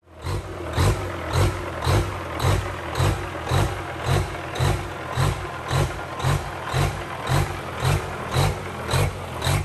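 Background music with a steady thumping beat, about two beats a second, coming in at the very start.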